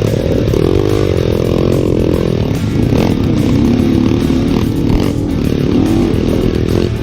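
Single-cylinder four-stroke Yamaha Vixion trail-bike engine revving up and down under load. The rider blames a compression leak for the engine's weak pull.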